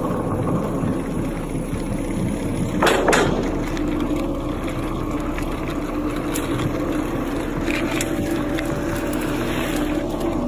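Mountain bike riding at speed on a paved trail: tyres rolling on asphalt with a steady hum, and a louder knock about three seconds in as the bike jolts over a bump.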